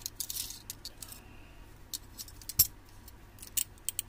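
Scattered small plastic-and-metal clicks and rattles from handling a large box cutter and turning its black screw-lock knob, with a couple of brief scraping sounds in the first second and a half and one sharp click about two and a half seconds in.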